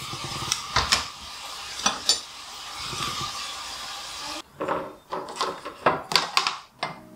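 Kitchen utensils clacking as they are set down one by one on a tray-type utensil rest, over the steady sizzle of food frying in a pan. After about four seconds the sizzle stops, and a quick run of sharper clacks and rattles follows as the rest's plastic tray and metal frame are handled.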